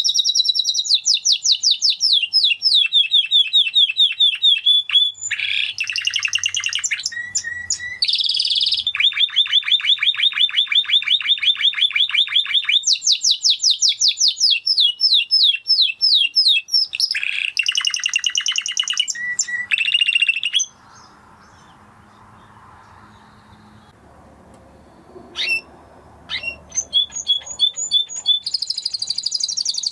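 Spanish Timbrado canary singing: long runs of fast, evenly repeated high notes that change speed and pitch from one run to the next. The song stops about two-thirds of the way through, then starts again with a few single notes and picks up into trills near the end.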